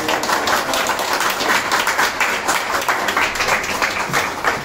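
A small group of people applauding, a dense run of hand claps.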